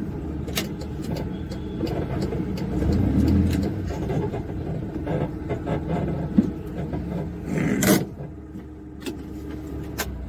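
Tata Ace mini-truck moving slowly, its engine and road rumble heard from inside the cab, with scattered clicks and rattles. A short, loud burst of noise comes near the end, and after it the sound is quieter.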